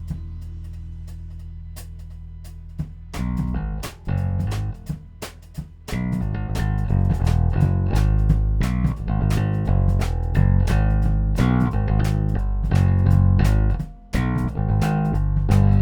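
Instrumental progressive rock/fusion: a Harley Benton PRS-copy electric guitar and a Fender Jazz Bass, both recorded direct through Tech 21 SansAmp preamp pedals, over a drum kit. A held low bass note rings under light cymbal ticks for about three seconds. Then the band plays stop-start hits and settles into full playing about six seconds in, with a brief break near fourteen seconds.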